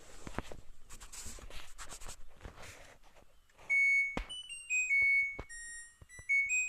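LG washing machine's electronic beeper playing its melody, a run of clear stepped notes that starts a little over halfway through. Before it comes rustling noise with a few sharp clicks.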